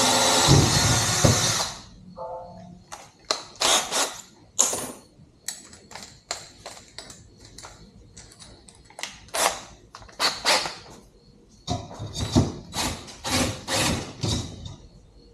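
Electric drill running at speed, boring into the steel swing arm, then stopping about two seconds in. After it, a long string of short, sharp clicks and clinks, irregularly spaced.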